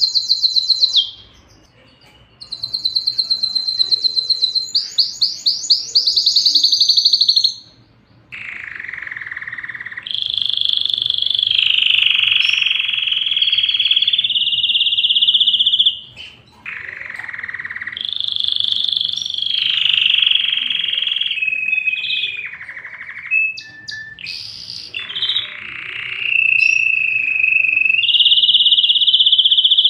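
Canary singing: long rolls of rapid repeated notes and trills, some held on one pitch for several seconds, broken by two short pauses in the first eight seconds.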